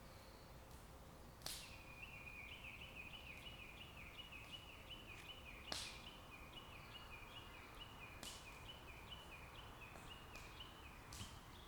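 A bird calling in a long, quick run of short repeated notes, faint against outdoor background, with a few sharp clicks scattered through.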